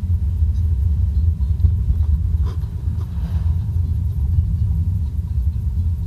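Steady low rumble, with a faint click about two and a half seconds in.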